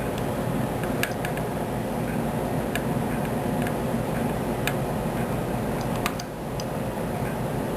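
Scattered sharp clicks and ticks of small trigger-box parts being handled, over a steady low rumble.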